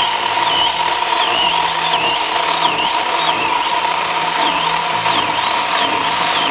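Battery-powered mini chainsaw running under load while it cuts through a thick woody vine. A steady electric motor whine with a higher chain whine whose pitch keeps dipping and recovering as it bites.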